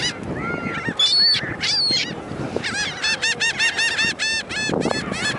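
Seagulls calling over one another: a few separate cries, then from about halfway through a fast run of repeated arched calls, about four or five a second, as the gulls crowd in for food.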